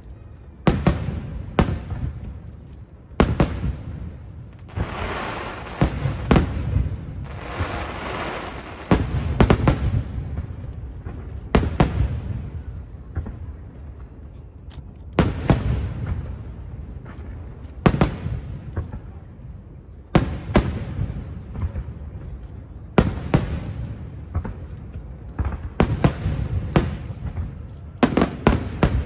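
Aerial fireworks bursting in a steady string of booms, one every second or two, each trailing a low rumbling echo. There are two spells of crackling shells about a third of the way in.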